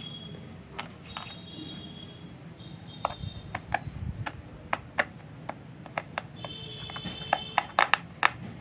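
A small screw being driven with a hand screwdriver into a plastic toy truck: irregular sharp plastic clicks and ticks, more of them in the second half. A faint high-pitched beeping tone comes and goes a few times behind them.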